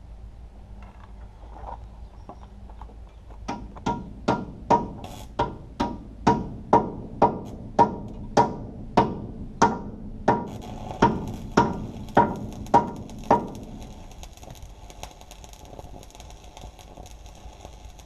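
A hammer striking the steel frame of an engine stand, a steady run of about twenty ringing blows at roughly two a second that starts a few seconds in and stops a few seconds before the end.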